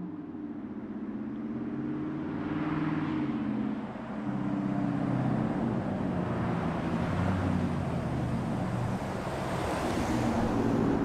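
Ram 1500's 5.7 Hemi V8 through a Borla Atak exhaust, driving toward and then past close by. The exhaust note grows louder as the truck approaches, with a brief dip about four seconds in, and is loudest near the end as it goes by.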